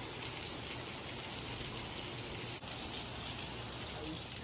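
Steady rain falling on wet brick paving and concrete.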